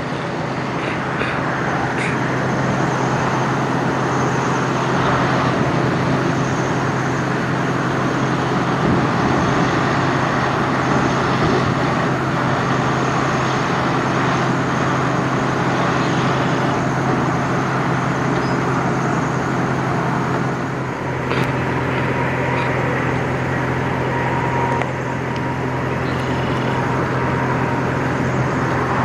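Diesel semi-truck engines running at low speed, a steady drone, as a Freightliner Cascadia tractor-trailer rolls slowly past and a Volvo VNL semi moves in near the end.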